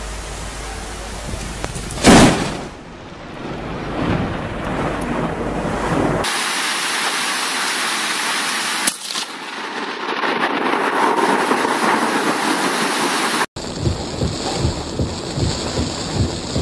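Thunder from a nearby lightning strike: a sudden loud crack about two seconds in that rumbles away over a second or so, then steady heavy rain with a shorter crack about nine seconds in. Near the end, rain and wind are heard from inside a car, with pulsing low thuds.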